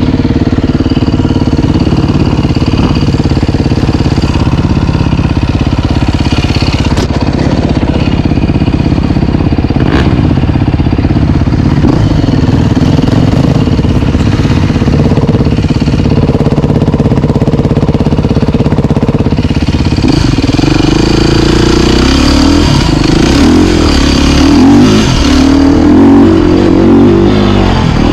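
Off-road motorcycle engine running under load while riding. It holds a fairly steady pitch for most of the time, then from about two-thirds of the way through it revs up and down quickly and repeatedly with throttle changes.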